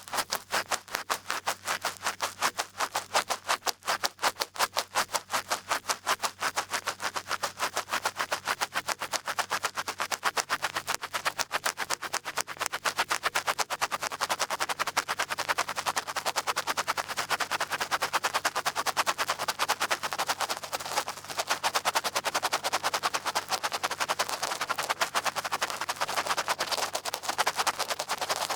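Large ear pick scratching and scraping in a fast, even run of sharp scratches, several a second, for ASMR ear-picking sounds.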